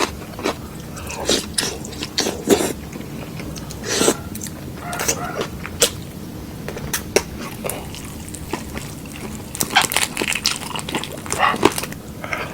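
Someone eating: irregular crunches, smacks and clicks of chewing and biting.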